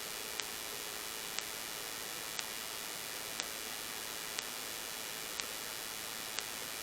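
Steady static hiss with a short, sharp tick repeating exactly once a second.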